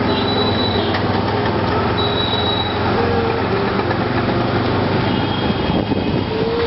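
Steady street traffic and engine hum heard during a rickshaw ride, with a few short high and mid-pitched tones over it about 2 and 3 seconds in and again near the end.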